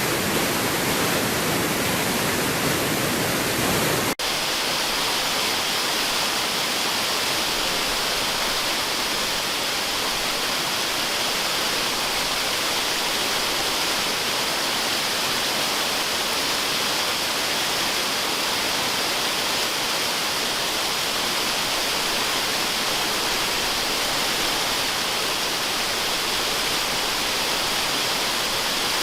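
Waterfall: a steady rush of falling water. About four seconds in, the sound cuts out for an instant and returns thinner and hissier, with less low rumble.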